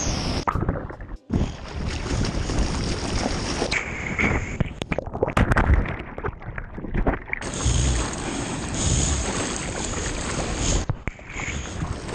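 Churning surf and splashing water at the GoPro's microphone, with wind buffeting it. In the middle the sound turns duller, with sharp splashes, as the camera goes under the water.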